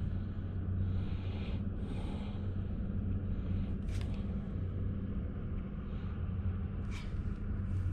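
Bow-mounted electric trolling motor humming steadily under a bass boat, with soft breaths close to the microphone and two sharp clicks, about four seconds in and again near the end.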